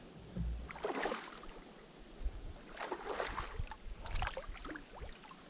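Water splashing around a kayak in a few short bursts, about one, three and four seconds in, as a hooked smallmouth bass is fought close to the boat.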